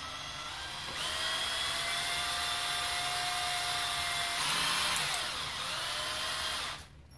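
Handheld power drill whirring, its pitch rising slowly, then dipping and climbing again, and cutting out briefly near the end.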